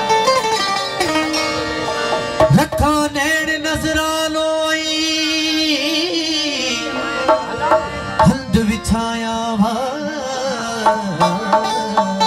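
Live Sufi devotional music: harmonium and a dholak barrel drum playing, with a male singer holding one long wavering note from about two seconds in to about seven seconds in.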